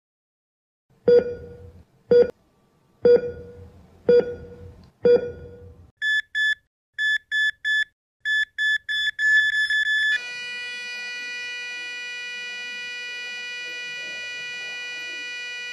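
Sound effects: five heartbeat thumps about a second apart, then a heart monitor's high beeps that come faster and faster, giving way about ten seconds in to a steady flatline tone.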